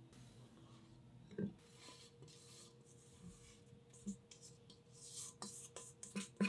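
Silicone spatula scraping thick cookie dough around a stainless steel mixing bowl, soft rubbing strokes, with a few light knocks of the metal bowl and utensil in between.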